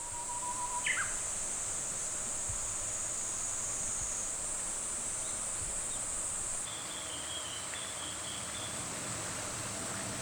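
A steady, high-pitched drone of insects over the even rush of a shallow stream, with short bird chirps about a second in and again a little after the middle.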